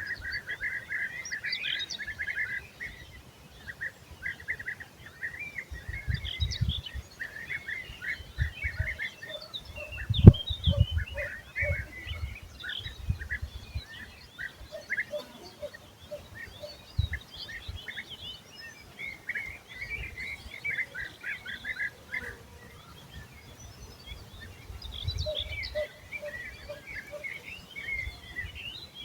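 Several birds chirping and singing in quick overlapping phrases, with low rumbling bumps now and then; the loudest is a sharp one about ten seconds in.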